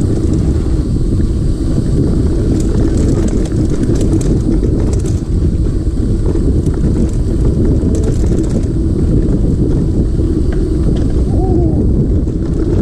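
Mountain bike riding over a rough dirt trail: steady wind rumble on the microphone mixed with the rattle and clatter of the tyres and bike.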